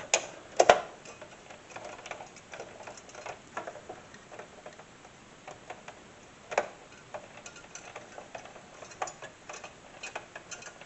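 Scattered clicks and knocks of a CPU cooler and its mounting being handled and pressed back into place. The two loudest come close together near the start and another comes about midway.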